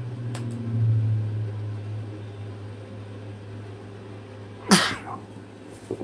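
A person sneezes once, loudly, about five seconds in, over a steady low hum that swells briefly near the start.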